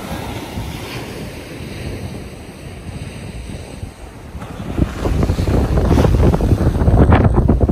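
Small ocean waves breaking and washing up a sandy beach, with wind buffeting the microphone. The wind rumble grows much louder about two-thirds of the way through.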